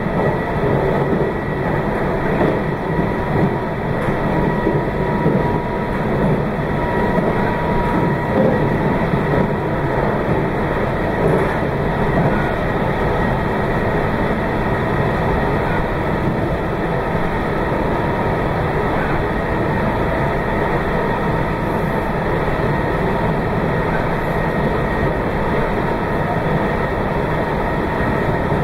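Meitetsu 2200 series limited-express electric train running steadily, heard from inside the leading car: a continuous rumble of wheels and running gear with a faint steady whine on top.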